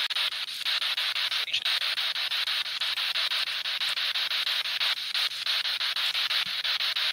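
Spirit box sweeping through radio stations: steady hissing static chopped into rapid, even pulses. The investigators take a fragment of it for a man's voice saying 'nie idź tu' ('don't go here').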